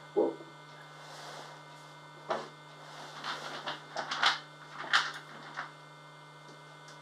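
A steady low electrical hum, broken by a scattering of short clicks and knocks. These come from small counting cubes and a wooden pattern board being handled on a wooden table, with a cluster of them in the second half.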